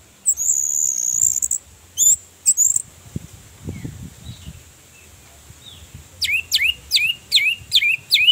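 Orange-headed thrush singing: a long high held note near the start, two short high notes, then a quick run of about seven sharp down-slurred notes, about three a second, near the end.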